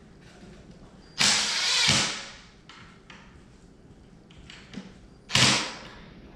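Cordless drill driving screws into a wooden furniture frame in two short bursts, the first just under a second long about a second in, the second shorter about five seconds in, with small handling clicks between.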